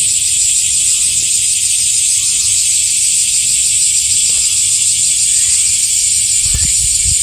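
Cicadas buzzing in a loud, steady high-pitched chorus of summer insects, with a low bump near the end.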